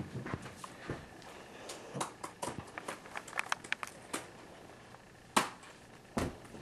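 Scattered clicks, taps and knocks from handling and movement in a small room, with a sharp knock about five seconds in and a heavier thump just after six seconds.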